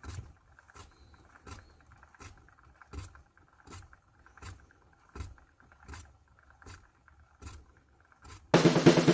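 Slippers dragging on the floor in quiet footsteps, an even scuff about every three-quarters of a second. Music comes in loudly near the end.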